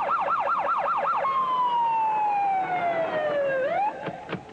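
Police car siren from a roof-mounted speaker, first in a fast yelp and then, about a second in, slowing into one long falling wail. The wail rises briefly and cuts off near the end, followed by a couple of short knocks.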